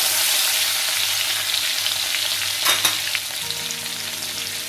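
Mustard oil sizzling in a kadai as tomato pieces, green chillies and nigella seeds fry, stirred with a spatula at first. There is a brief knock a little over halfway through.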